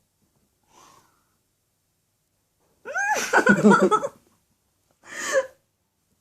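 Two wordless emotional vocal outbursts from a person's voice: a longer one about three seconds in that rises in pitch, and a shorter one near the end.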